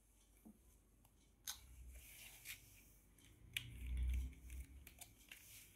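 Faint clicks and rustles from handling a plastic sachet of chicken spread, with a low thump about four seconds in.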